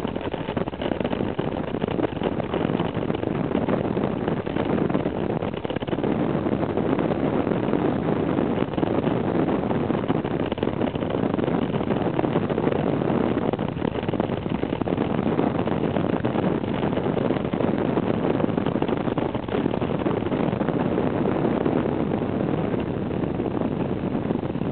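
Steady rushing road and wind noise heard from inside a moving vehicle travelling along a winding road, with no clear changes.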